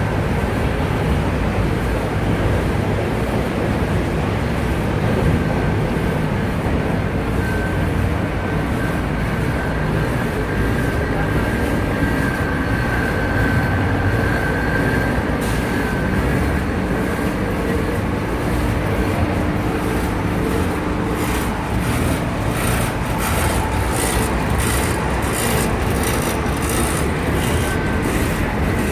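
Large Dainichi engine lathe running: a steady, loud mechanical drone of the spindle and gearing, with a thin squealing tone in the middle and rapid clicking over the last few seconds.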